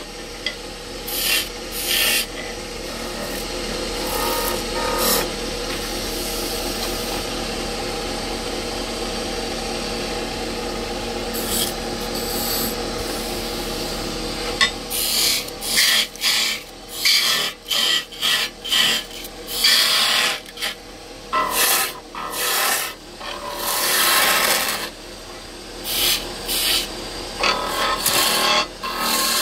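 Wood lathe running with a turning tool scraping the spinning wood: one long continuous cut, then many short separate passes through the second half.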